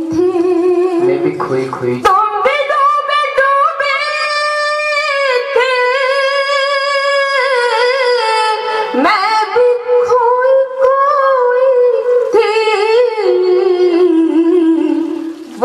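A woman's voice singing a line of Urdu verse to a slow melody, with long held notes that waver in pitch.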